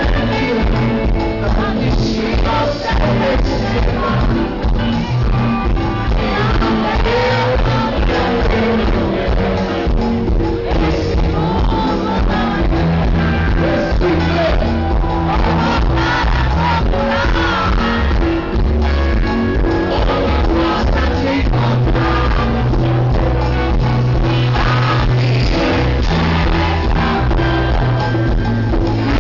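Live band playing a song with singing, loud and steady, with a strong bass line.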